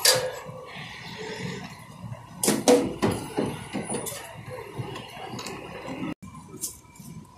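Paper burger wrapper and a cardboard burger box being handled, rustling and crinkling, with several sharp crackles and taps as the burger is wrapped and boxed.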